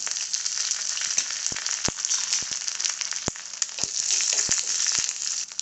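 Tempering in hot oil in a small pan: mustard seeds, urad dal, dried red chillies and curry leaves sizzling steadily, with about seven sharp pops scattered through the middle of it.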